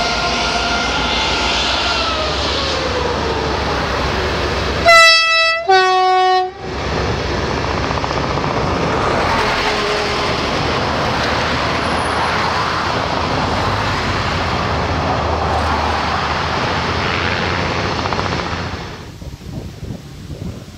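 Stadler diesel freight locomotive sounding its horn in two short blasts, the second lower in pitch, then the steady rumble and clatter of loaded pulp wagons rolling past, which cuts off suddenly near the end.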